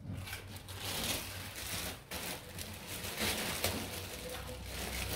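A Rottweiler chewing a hard, crunchy treat stick, mixed with the crinkling rustle of a plastic bag of treats, in a steady irregular crackle.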